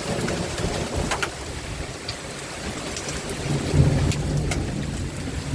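Hail and rain pelting down in a steady hiss, with sharp clicks from individual hailstones striking, and a low rumble swelling about four seconds in.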